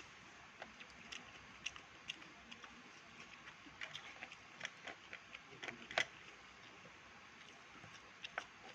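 Soft, irregular eating sounds: small wet clicks of chewing and mouth noises, coming in scattered bunches, with the loudest click about six seconds in.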